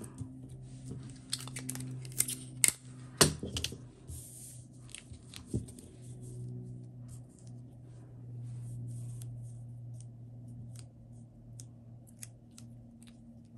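Adhesive tape being pulled, torn and pressed onto printed paper pattern pieces: a cluster of sharp snaps and crackles a couple of seconds in, a short tearing rasp, then lighter paper ticks and rustles. A low steady hum runs underneath.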